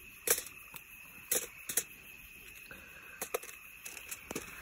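Scattered crinkles and clicks of aluminium foil being handled while food is packed into a foil packet, over a steady high drone of insects.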